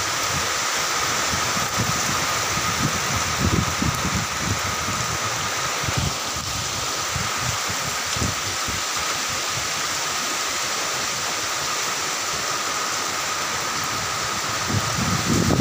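Steady hiss of light rain falling through tree leaves, with irregular low gusts of wind buffeting the microphone and a thin steady tone running underneath.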